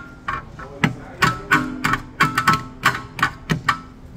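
Hammer striking a rear brake caliper, about a dozen quick, uneven blows, each with a short metallic ring. The blows are knocking the caliper free where dirt has it stuck.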